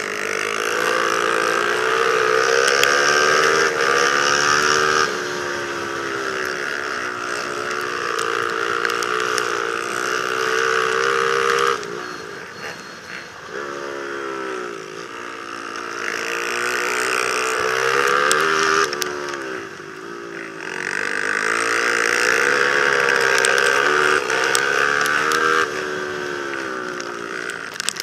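Racing quad's engine heard from on board, revving high and hard down the straights and dropping off sharply as the throttle is lifted into the turns, twice, before climbing again.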